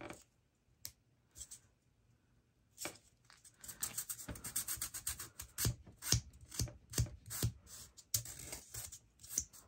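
Small clicks and scratching of fingernails and press-on nail tips being handled, with scraping as excess nail glue is picked off the fingers. A few scattered clicks, a near-silent gap, then from about three seconds in a dense run of quick clicks and scratches.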